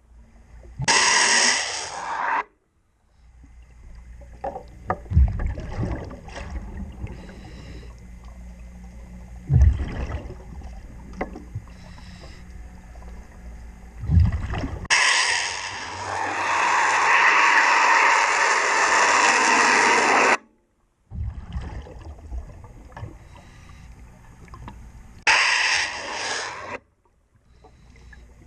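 Underwater work noise from a diver cleaning a boat's sea chest: low knocks and scraping against the hull fittings, broken three times by loud rushes of noise, the longest about five seconds, typical of exhaled scuba regulator bubbles.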